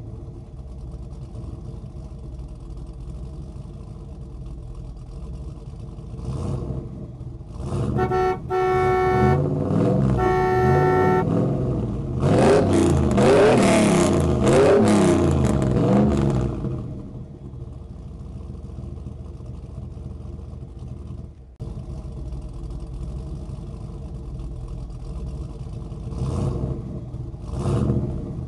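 Recorded car sounds from a die-cast Volkswagen Amarok model's light-and-sound unit: an engine idling steadily, two horn honks about eight and ten seconds in, then revving that rises and falls in pitch for several seconds before settling back to idle.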